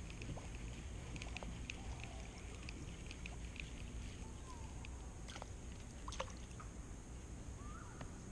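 Light water sloshing against a small plastic boat's hull, with scattered faint clicks and a steady low rumble underneath.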